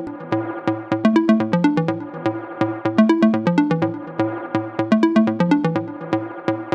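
Electronic background music: a repeating pitched melody over a steady beat.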